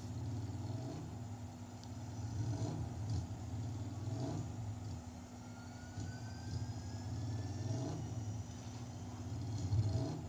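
Motor vehicle engine running with a pulsing low drone that swells and fades, and a faint whine rising slowly in pitch in the second half; a steady low hum runs underneath.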